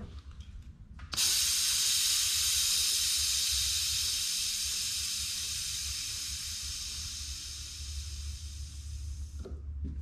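Compressed air hissing through the venturi of a coolant vacuum-fill tool, pulling a vacuum on the engine's cooling system to draw out trapped air. The hiss starts abruptly about a second in, runs steadily for about eight seconds while easing slightly, and cuts off sharply near the end.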